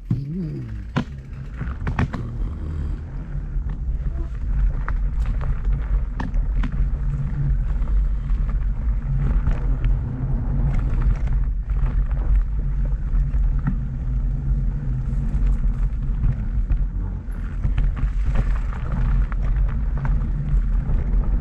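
Fat bike rolling over a wooden boardwalk: a steady low rumble with irregular knocks and rattles as the tires cross the planks.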